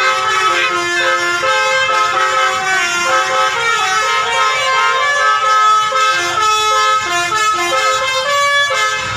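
Indonesian "telolet" multi-tone bus horn playing its tune: several horn notes sound together and change in quick steps, without a break.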